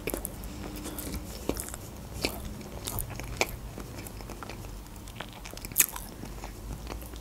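A person chewing a mouthful of boiled potato close to the microphone: soft wet smacks and mouth clicks, with one sharper click about six seconds in.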